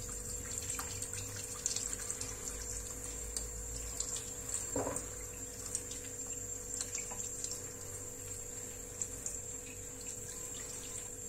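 A tap running into a sink while a toothbrush scrubs the bloodline out along the backbone of a gutted fish, with small scattered scrubbing ticks and splashes.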